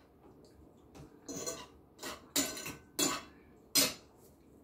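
Metal spoon and fork clinking and scraping against a bowl and plate while eating, about five short knocks over three seconds.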